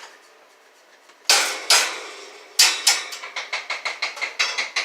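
Two sharp knocks, then a fast run of sharp clicks and taps at about four to five a second.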